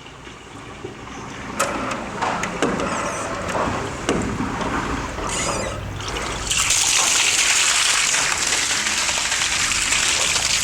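Toilet flushing down a drain line: water gurgling and splashing, rising into a loud steady rush about two thirds of the way in.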